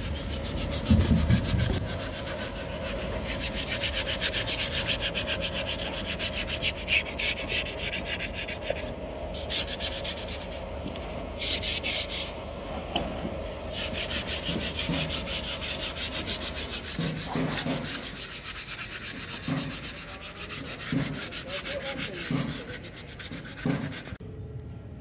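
Sandpaper rubbed by hand over a carved wooden chair frame in quick, steady back-and-forth strokes, with a few light knocks of the wood in the second half.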